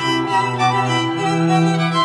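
Background music of bowed string instruments playing slow, held notes.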